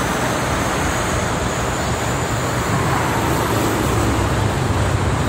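Steady traffic noise from a busy multi-lane highway: cars and heavily loaded trucks passing at speed, a constant low hum of engines and tyre noise.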